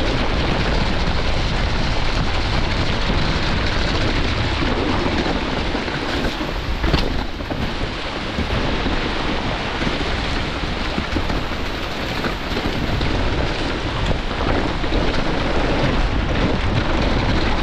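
Steady loud rushing noise of a downhill mountain bike descending a wet trail: wind and tyre noise on the rider's camera, with a brief knock about seven seconds in.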